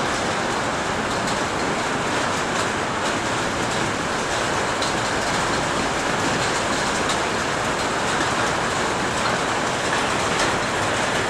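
Heavy rain and hail falling hard: a dense, steady hiss of downpour with faint scattered ticks of hailstones striking.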